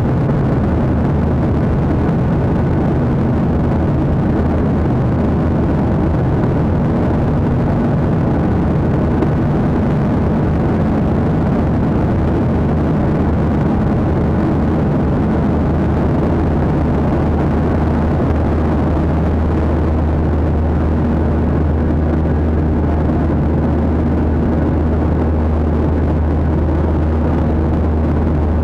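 Steady cabin noise of a jet airliner in flight, heard from a window seat: a loud, even rush of engines and airflow, heaviest in the low range. A faint low hum joins about two-thirds of the way through.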